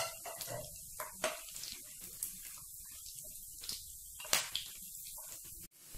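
Whole spices (cumin seeds, bay leaf, dried red chillies, cardamom) sizzling in hot oil in a frying pan for a phoran (tempering): a steady hiss with scattered sharp crackles and pops, dropping out briefly near the end.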